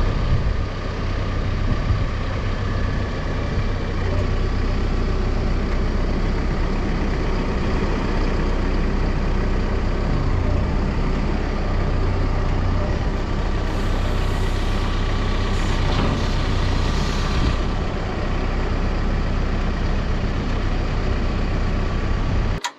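Caterpillar 420F2 backhoe loader's diesel engine running steadily, with a hiss coming up for a few seconds about two-thirds of the way through.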